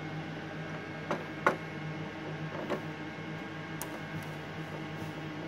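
A handful of scattered light clicks and ticks of small metal parts and a tool being handled while the nuts on a line card's top board are removed, the sharpest about a second and a half in, over a steady mechanical hum with a faint high whine.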